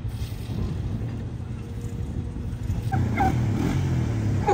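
Steady low drone of farm machinery engines, with dogs barking and yelping a few times from about three seconds in.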